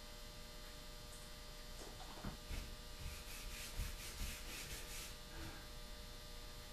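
Faint rubbing of a cotton rag wiping stain onto a maple rifle stock, with soft handling knocks, over a steady electrical hum.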